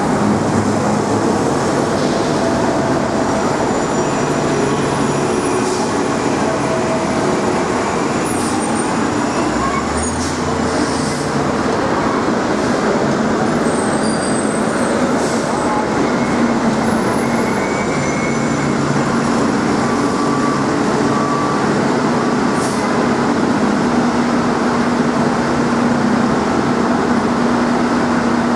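Subway train running, a steady rumble of wheels and motors, with a few sharp clicks.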